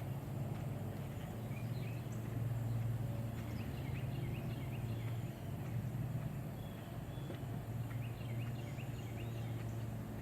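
Birds chirping in many short calls over a steady low rumble.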